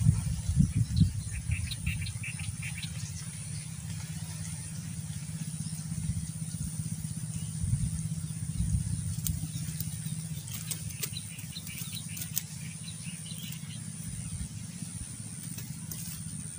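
Outdoor ambience: a low, uneven rumble with a few faint bird chirps, twice in short runs, and some light clicks.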